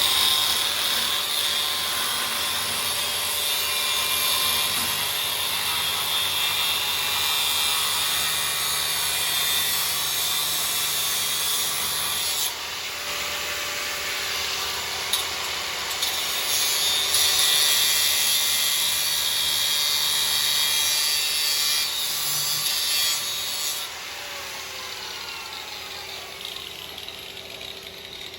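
Handheld power cutting tool, most likely an angle grinder with a cut-off wheel, spinning up and cutting with a steady high-pitched whine and grinding rasp. The whine shifts in pitch as the cut goes on, then it eases off and winds down near the end.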